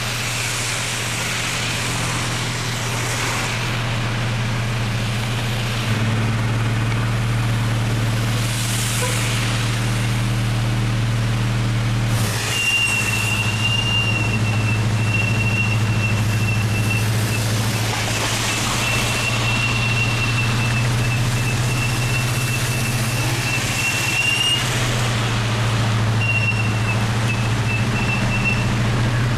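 Vehicle engine humming steadily as it drives along a rain-soaked, flooded street, with an even hiss of rain and wet tyres throughout. A thin, high, steady whine comes and goes through the second half.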